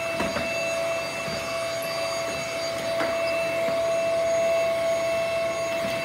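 Steady machine hum holding one constant pitch, with a faint click about three seconds in.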